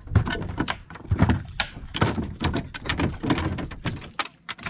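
Rapid, irregular knocks and rattles of gear against the aluminum boat's hull and deck.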